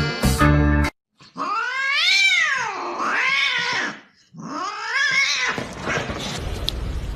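A cat giving two long, drawn-out meows, each rising and falling in pitch; the first swells twice before it ends.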